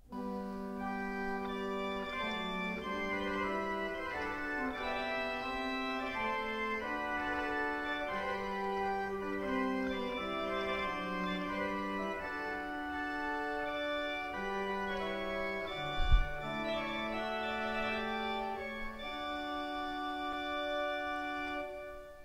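Cathedral pipe organ playing a melodic passage on a cornet registration, in which the mutation stops sounding a fifth and a third above the note are combined into one bright solo colour, a sound much used in French classical music. A single low thump sounds about two-thirds of the way through.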